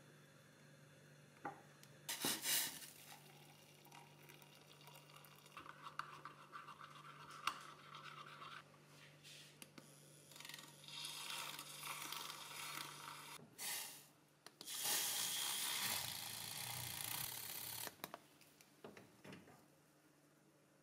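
Spoon scooping hojicha tea powder from a bag and scraping and stirring it in a ceramic mug, a scratchy rubbing sound in several stretches, the longest near the end. A low steady hum runs underneath.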